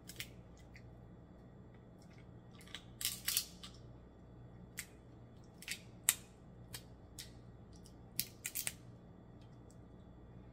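Snow crab leg shells cracking and snapping as they are broken apart by hand: a scattered series of sharp cracks, bunched about three seconds in and again near the end, the loudest about six seconds in.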